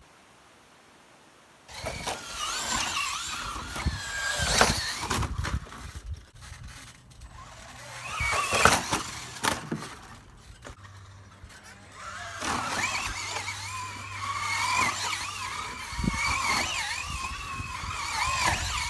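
Electric motor of a Traxxas Slash RC truck whining, its pitch rising and falling with the throttle as the truck drives around the inside of a trampoline's net enclosure, starting about two seconds in. Several sharp knocks as the truck bumps and lands.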